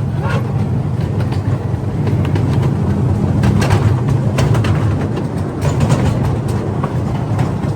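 Small tourist ride train running: a steady low drone with scattered clicks and rattles from the carriages.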